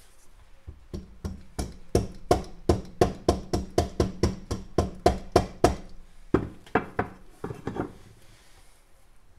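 Mallet blows on an aluminium motorcycle crankcase, a quick run of about four knocks a second, then a short pause and a few more: the halves are being knocked apart to split the cases.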